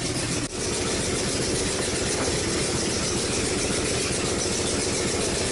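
2005 Chrysler 300C's 5.7-litre Hemi V8 running at idle, a steady, rapid pulsing exhaust note, with a brief dip in level about half a second in.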